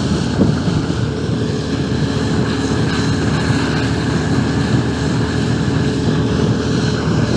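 Outboard motor of an inflatable boat running steadily at speed, with a steady engine whine over the rush of water along the hull.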